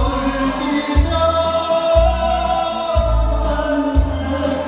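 A man singing into a microphone over a recorded backing track, amplified through a PA. A deep bass note lands about once a second and cymbals keep time, while a long held note sits under the melody.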